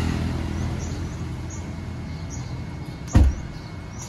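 Low rumble of a passing road vehicle fading away, with faint bird chirps. A single loud thump comes about three seconds in.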